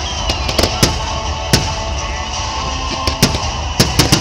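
Fireworks display: aerial shells bursting in a string of sharp bangs at irregular intervals, with a quieter stretch in the middle and several bangs close together near the end, over music playing in the background.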